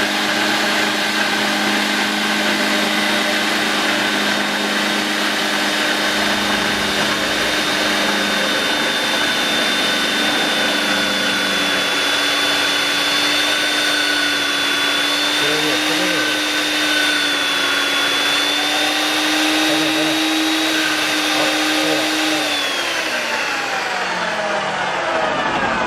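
Paldo BS-150 portable band saw running, its 2000-watt inverter motor and gearbox giving a steady high whine. Near the end it winds down, the pitch falling as it stops.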